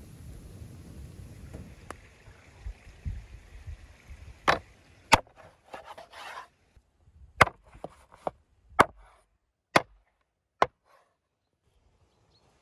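A large knife chopping through a rack of lamb on a wooden cutting board: about seven sharp, unevenly spaced chops, with some scraping of the blade between the first few.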